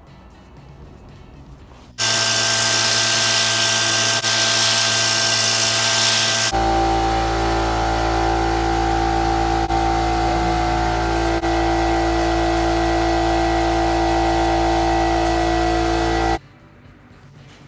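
A power tool running steadily: a motor whine over a strong hiss. It starts abruptly about two seconds in, changes to a lower, heavier tone partway through and stops suddenly near the end.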